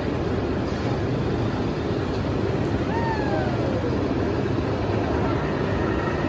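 Steady outdoor amusement-park din with a low rumble and faint background voices. About three seconds in, a single high whistled note slides downward.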